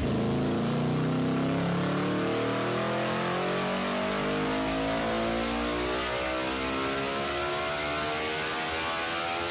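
Honda NR500 oval-piston V4 four-stroke racing engine running on a rolling-road dyno, its pitch climbing slowly and steadily as it pulls up through the revs under load.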